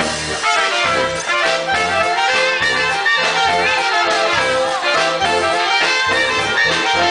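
Live Alpine German band music led by brass, with the melody over a steady bass note sounding on the beat.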